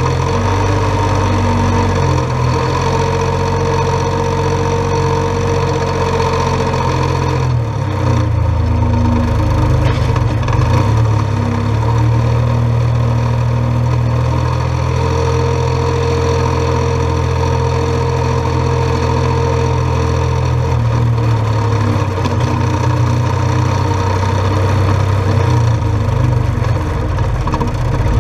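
Massey Ferguson 1523 compact tractor's diesel engine running steadily at working speed while scraping, its note shifting slightly a couple of times.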